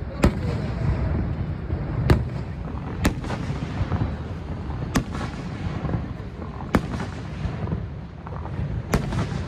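Fireworks going off: six sharp bangs at irregular intervals over a steady low rumble.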